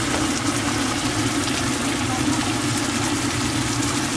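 A coffee maker heating water, giving out a steady low hum with a noisy rush above it.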